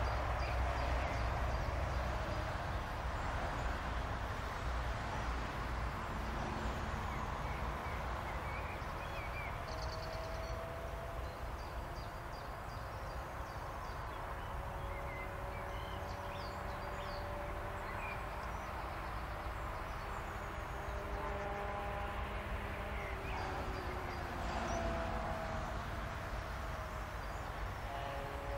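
Distant electric locomotive approaching along the line: faint drawn-out tones come in about a third of the way through and grow over a steady open-air background rumble. Short bird chirps are scattered through.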